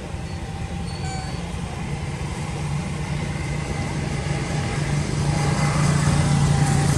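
A low engine drone, growing steadily louder, as of a motor vehicle coming closer.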